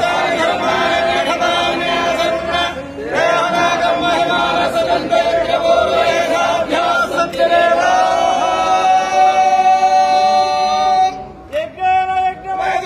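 A group of priests chanting Vedic mantras together in long held notes, with short breaks for breath about every three to four seconds.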